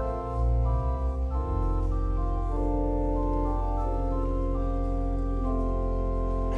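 Church organ playing slow sustained chords over a held deep bass note, the chords changing every second or so.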